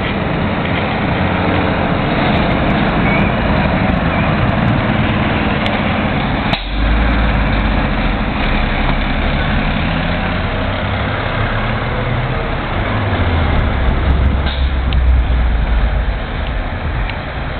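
Volvo fire engine's diesel engine running as the truck drives past close by and pulls away, with a low engine hum that grows stronger partway through.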